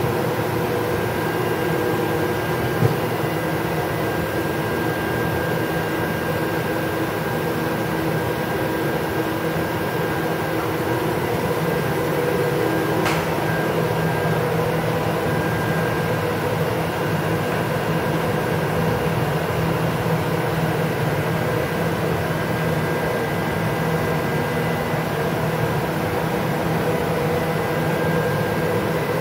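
Steady hum of a Fadal 3016 CNC vertical machining centre powered up and idling, its cooling fans and electrics running with several steady tones. There is one short click about three seconds in.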